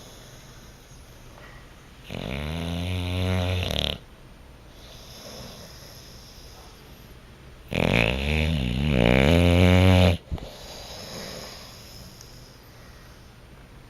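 English bulldog snoring in its sleep: two long, loud snores of about two seconds each, several seconds apart, with quieter breathing between them.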